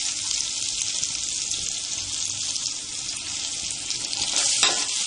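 Ginger-garlic paste sizzling in hot oil in a pan with fried onions, a steady crackling hiss. A brief louder surge of sizzling comes near the end.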